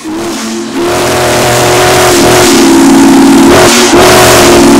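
Union Pacific 4014 Big Boy's steam whistle blowing loud, held blasts: a chord of several steady tones over a hiss of steam. It breaks off briefly a little before four seconds in, then sounds again.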